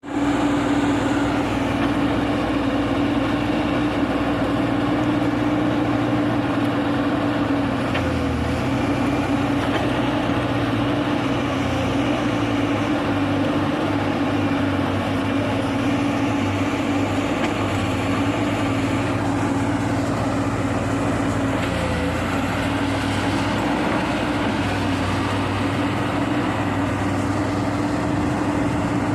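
Diesel engine of heavy earth-moving machinery running steadily, with a constant droning tone over a low rumble.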